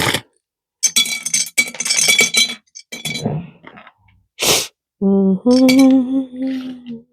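Small jewellery charms clinking and rattling against each other as they are handled, in quick runs of light clicks with a bright ring. Near the end a person hums a held note for a second or two.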